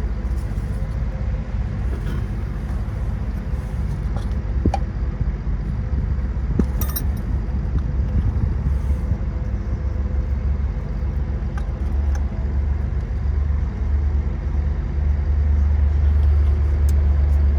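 Steady low rumble, swelling near the end, with a few short clicks of metal brake parts being handled as new rear brake pads are fitted.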